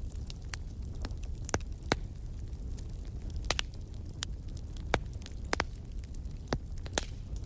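Wood fire crackling, with scattered sharp pops and snaps over a steady low rumble of flame.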